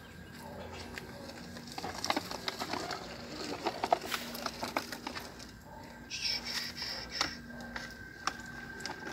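Plastic toy trucks being handled and pushed over dirt: a cluster of clicks and scrapes from about two to five seconds in, then a brief hiss about six seconds in. A faint steady high tone runs underneath.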